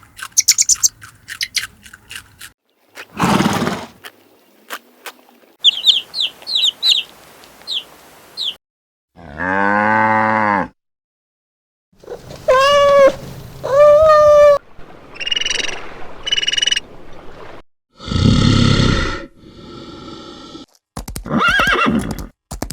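A run of separate animal calls, one short clip after another with brief silences between them. First come rapid clicks, then a series of high chirps, a long low call, two higher drawn-out calls, two short high calls, and a rough, noisy call near the end.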